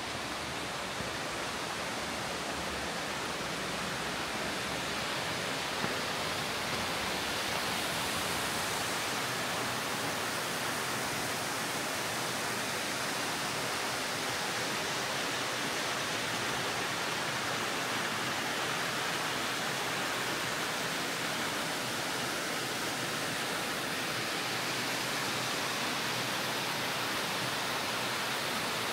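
Steady rush of flowing, falling water, growing a little louder over the first several seconds.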